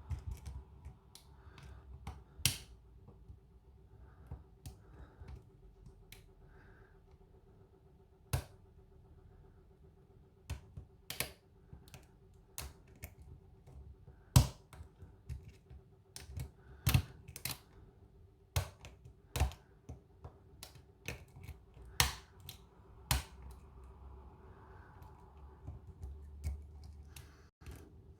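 Lock pick and tension wrench working the pins of a kik lock cylinder with ammo-style security pins. Irregular, sharp metal clicks come every second or so, a few much louder than the rest.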